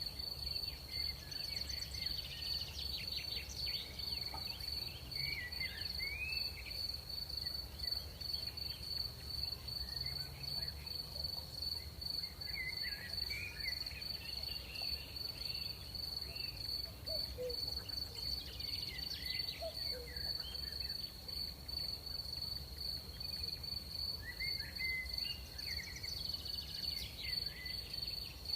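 Crickets trilling in one continuous high, even tone, with scattered short chirping calls at a lower pitch over a low steady rumble.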